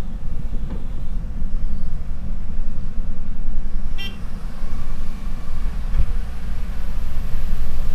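Diesel engines of a Tata Hitachi excavator and a loaded dump truck running with a steady low rumble. A brief high toot comes about four seconds in, and a single knock about two seconds later.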